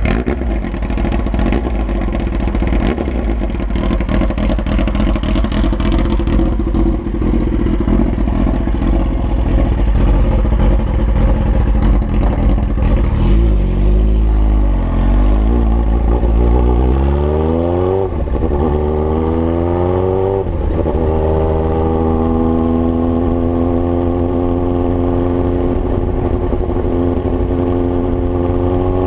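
Kawasaki ZX-9R's inline-four engine running with no exhaust fitted. It holds a steady low note at first, then about halfway in it revs and pulls away, rising in pitch through two gear changes, and settles into a steady higher note for the last third.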